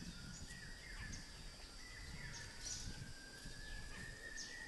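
Faint forest ambience: birds calling in short, falling chirps over a steady high drone, with a low rustle underneath.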